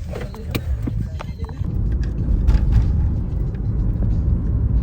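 Steady low road rumble of a car in motion, heard from inside the cabin. It follows a few brief knocks and faint voices in the first second or two.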